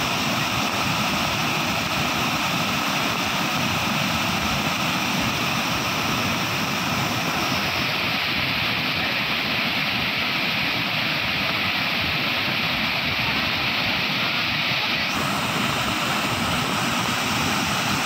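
Large waterfall in full flood: a steady rushing roar of heavy water pouring over a rock ledge.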